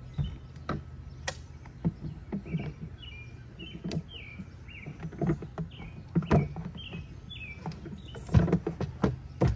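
Irregular sharp knocks and clicks of hands working on the boat's fittings, loudest in a cluster about eight seconds in. A bird chirps over and over with short calls throughout.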